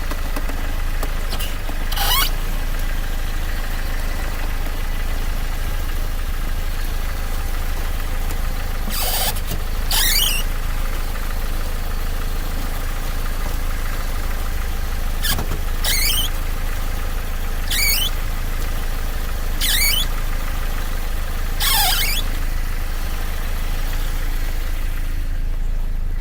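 A Dodge Caliber squeaking: short, high squeals that slide down in pitch, about eight of them at uneven intervals, over the steady hum of the engine idling.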